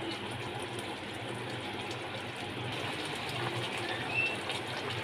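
Mustard-and-poppy-seed fish curry gravy bubbling at a steady boil in a kadai.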